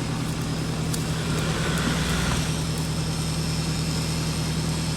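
Off-road SUV engine running steadily, a little louder for about a second around two seconds in, with a few faint clicks.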